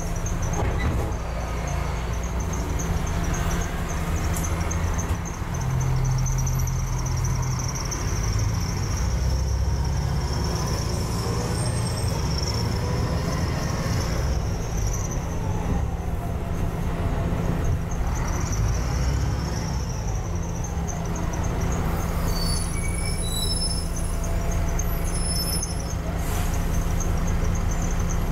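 Double-decker bus engine and drivetrain heard from the upper deck as the bus pulls away from a stop and accelerates, with a whine that rises and falls through the gear changes. Brief high squeals come near the end.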